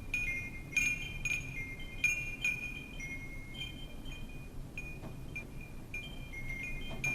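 Wind chimes struck at random, several strikes close together in the first couple of seconds and then sparser, each note ringing on as a high bell tone, over a low steady rush of wind.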